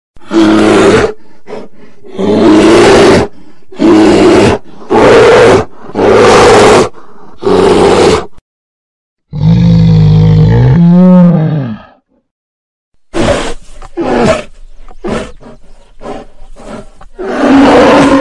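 Sloth bears roaring: six loud roars of about a second each in quick succession, then a longer, deeper roar whose pitch bends, a run of short sharp calls, and one more loud roar near the end.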